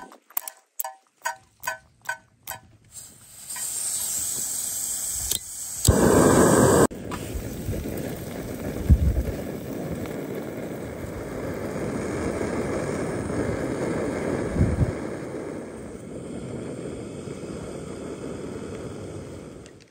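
A plastic oil spray bottle spritzed several times in quick succession over a frying pan. It is followed by the steady noise of a canister gas camping stove burning under the pan as food fries, with a brief louder rush about six seconds in.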